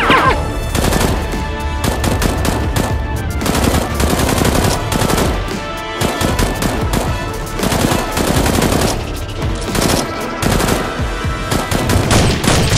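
Rapid automatic gunfire sound effects, shots packed closely together in continuous bursts, dubbed over a staged toy-blaster shootout.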